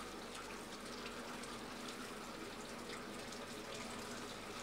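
Milk pouring in a steady stream from a tap into a large steel vat, running and splashing evenly as the vat fills.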